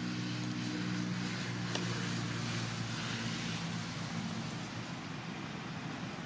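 A motor running with a steady low hum that fades away about four seconds in, over a constant hiss, with one sharp click near two seconds in.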